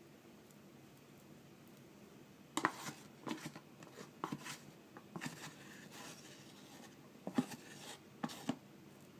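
A series of light clicks and short scrapes, like a plastic food container and its contents being handled, starting about two and a half seconds in.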